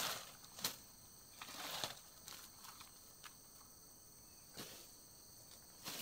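Faint rustling and scuffing of palm fronds and cut grass being handled, in a few short bursts, with footsteps on cut grass as someone stands and steps away near the end.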